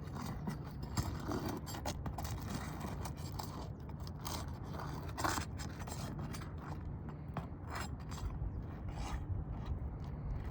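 Asphalt shingles being pried loose from their sealant strip, with irregular scrapes, cracks and clicks over a steady low rumble.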